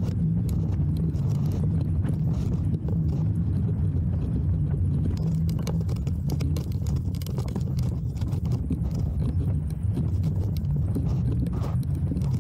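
Bicycle rolling over a bumpy, rutted dirt track: a steady low rumble with many small, irregular knocks and rattles from the bike and its handlebar-mounted camera.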